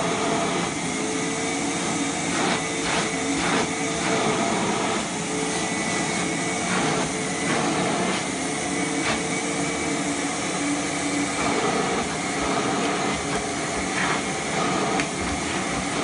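Vacuum cleaner running steadily while its hose and brush nozzle are worked over a dog's short coat, the motor's whine shifting in pitch a little now and then.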